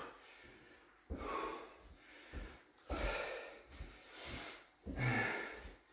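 A man breathing hard from exertion during intense exercise: a run of about five heavy, rushing breaths, roughly one a second.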